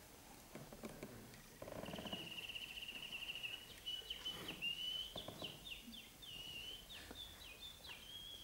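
Faint birdsong: a high, wavering trill begins about two seconds in and runs on as a string of short downward-sliding chirps.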